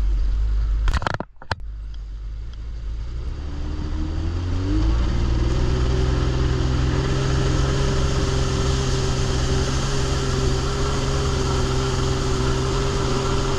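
Sea-Doo jet ski's Rotax two-stroke twin engine picking up speed, its pitch rising for a couple of seconds and then holding steady at cruise. About a second in there is a brief sharp break in the sound.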